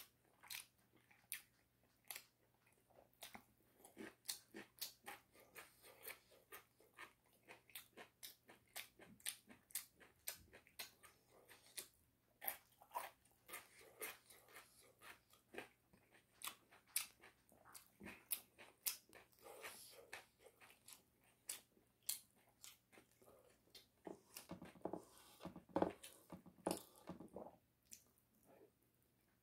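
A person biting and chewing crispy Goobne chicken: a quick run of crunching clicks, several a second, with a few fuller, louder mouth sounds near the end.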